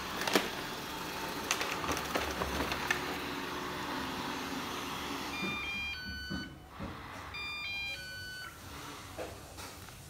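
Ecovacs Deebot robot vacuum whirring, with a few clicks and knocks; about five seconds in the whir stops and the robot plays two short electronic chimes of a few stepped notes each, about two seconds apart.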